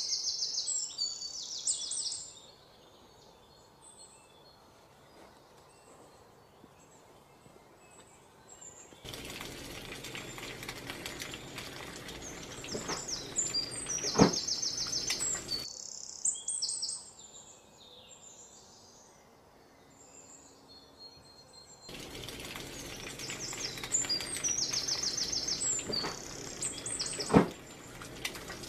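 Small birds chirping in short repeated phrases. Twice the steady sizzle of sliced onions frying in oil in a large pot comes in for several seconds, each time with one sharp knock.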